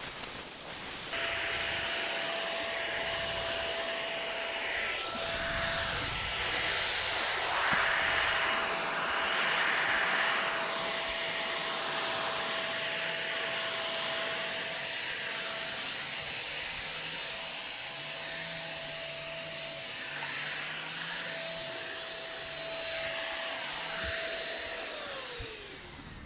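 Electric paint spray gun (Total TT3506) running with its steady motor whine and the hiss of spraying, then switched off near the end, the whine falling as the motor spins down.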